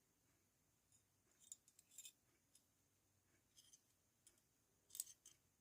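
Faint metallic clicks and scrapes from a small pocket-size metal multi-tool being handled, in a few short clusters, the sharpest about five seconds in.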